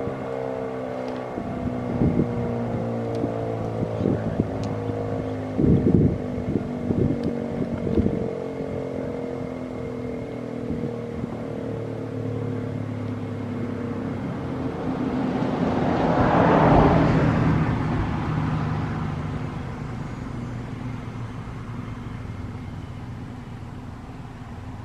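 ACA P-15 outdoor warning siren winding down after its alert cycle, its pitch slowly falling as it fades out. Wind buffets the microphone in thumps during the first several seconds, and a rushing noise swells and fades about two-thirds of the way in.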